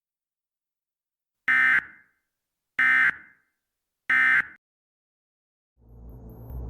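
Emergency Alert System end-of-message data tones: three short, identical bursts of screeching digital warble about 1.3 seconds apart, signalling the close of the alert. Near the end a low rumble swells in.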